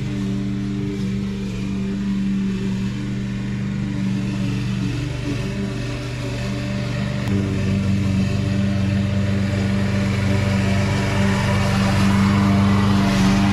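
Gasoline walk-behind lawn mower engine running steadily, growing louder as the mower is pushed closer.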